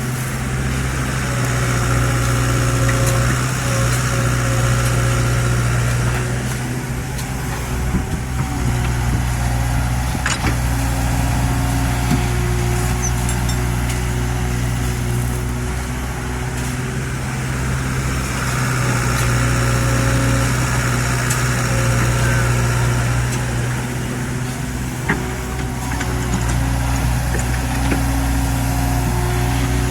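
Excavator's diesel engine running steadily with its hydraulics working. It grows louder twice, about a second in and again some 18 seconds in, each time with a higher whine, and there are a few sharp clacks.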